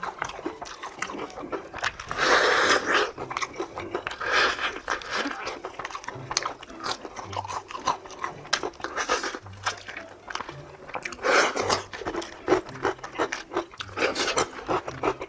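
Close-miked bites and chewing of crispy fried chicken: sharp crunches of the batter and crackly mouth noises, with several louder bursts of crunching.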